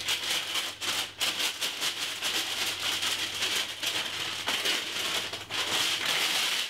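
A sheet of baking paper crinkling and rustling as it is handled, in a dense run of small crackles that cuts off sharply at the end.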